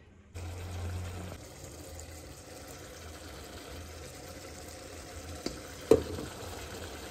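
Kitchen sounds of chicken being cooked: a steady watery hiss over a low hum, with a sharp knock about six seconds in.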